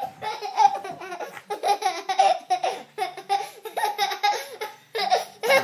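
A toddler laughing hard in a long string of short, high-pitched bursts, with a brief break near the end.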